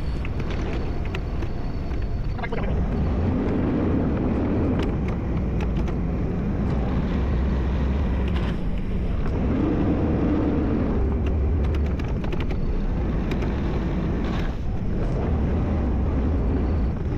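Kubota skid steer's diesel engine running under load while grading. The engine note swells three times, about six seconds apart.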